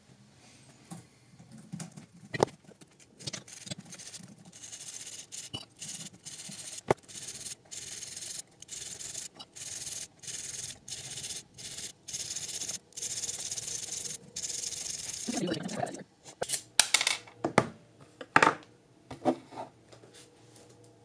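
A small metal file scraping back and forth on a thin glass rod in quick repeated strokes, about two a second, followed near the end by a few sharp clinks of glass.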